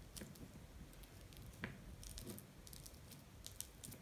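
Fork mashing banana in a small ceramic bowl: faint soft squishing with a few light clicks of the fork on the bowl.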